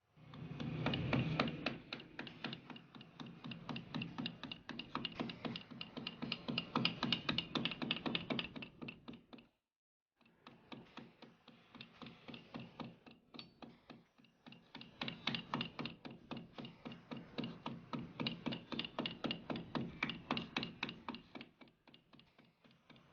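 Background music with a quick, even beat. It cuts out abruptly for a moment a little before halfway, then resumes.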